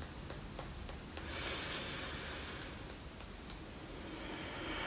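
Fingertips tapping on the body, an EFT tapping round, in light even taps about three a second, with a soft breath near the end.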